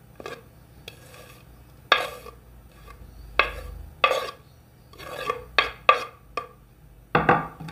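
Spoon stirring and scraping in a bowl of grated potato and onion mixture for pakora. It comes as separate strokes at irregular intervals, the loudest near the end.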